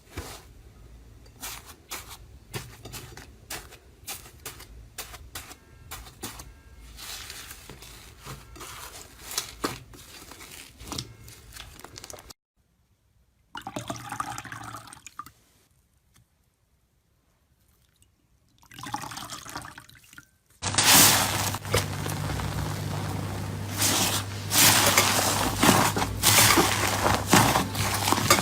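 Slime being squeezed and worked by hand, with wet clicks and squelches across several short clips. There is a gap of near silence in the middle, and the last clip is louder and denser, with a steady low hum underneath.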